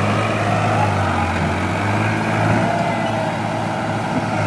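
Diesel engines running steadily: a New Holland tractor pulling a loaded trolley, with a backhoe loader working close by. There is a constant low drone with a faint wavering whine over it.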